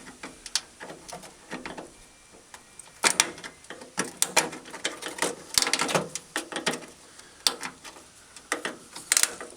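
Small metal pry tool scraping and clicking in a truck door's window channel as the worn-out felt strip and its clips are pried loose, a series of irregular scrapes and sharp clicks.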